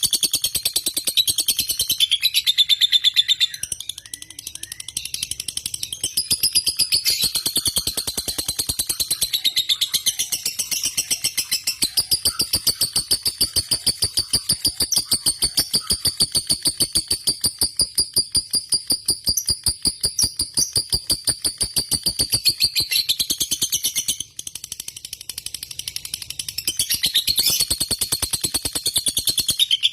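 Lovebird singing a long, rapid chattering trill, the ngekek prized in fighter lovebirds, kept up almost without a break. It dips briefly about four seconds in and again near twenty-four seconds.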